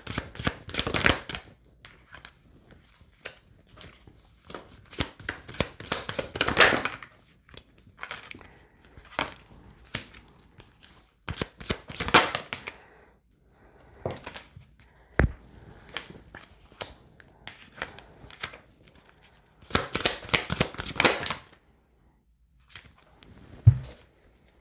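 Tarot deck shuffled overhand by hand: several bursts of rapid card flicking and slapping, with quieter card handling between them. Two short dull knocks, one about halfway through and one near the end.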